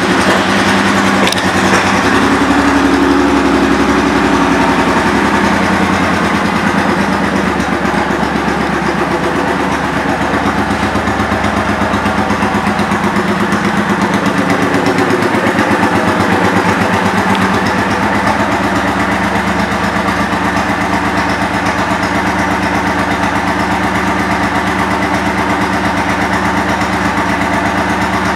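A 2009 Suzuki Boulevard M90's V-twin engine idles through Cobra aftermarket pipes, just after starting. It is a little louder for the first several seconds, then settles to a steady idle.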